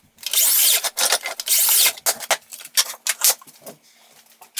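A plywood strip rubbed across a plywood panel in two harsh rasping strokes, each about half a second long, followed by a few light knocks as it is set in place.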